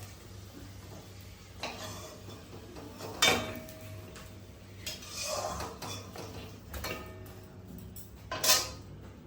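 A metal utensil clanking against a kadai a few times while fried egg rolls are lifted out of the hot oil; the loudest knocks come about three seconds in and near the end, one of them ringing briefly.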